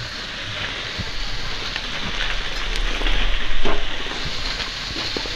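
Diced vegetables sizzling in oil in a frying pan, with dry instant noodles crackling as they are crumbled by hand into it; the noise swells about three to four seconds in.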